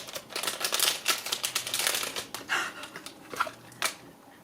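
Blind-box packaging being opened by hand: dense crinkling, rustling and rapid small clicks, thinning to a few scattered clicks in the last second or two.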